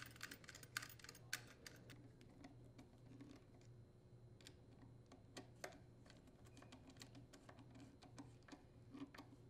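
Faint, scattered clicks and ticks from a T27 Torx screwdriver driving the carburetor mounting bolts into a Husqvarna 150BT leaf blower's plastic air filter housing and insulator. The clicks come quickly for the first couple of seconds, then more sparsely.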